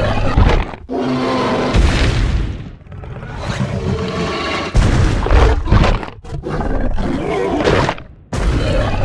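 Dinosaur roar sound effects, a string of loud roars and growls one after another with short breaks between them.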